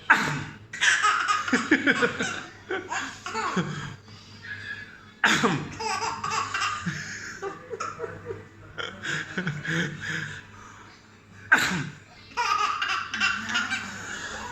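Three sudden sneezes, about six seconds apart, each followed by a run of chuckling laughter.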